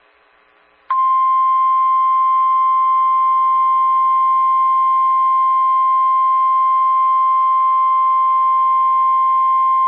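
NOAA Weather Radio 1050 Hz warning alarm tone: a single loud, steady beep that starts abruptly about a second in and holds unchanged for about nine seconds before cutting off. It is the attention signal announcing that an urgent warning broadcast follows.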